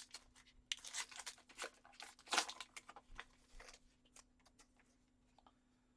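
Faint crinkling and rustling of a trading-card pack wrapper and cards being handled, in a run of irregular rustles through the first half, then a few light clicks.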